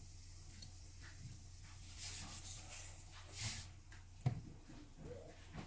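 Hot oil sizzling in a non-stick wok with turmeric powder in it, hissing up louder twice, about two and three and a half seconds in. A sharp click comes just after four seconds, over a low steady hum.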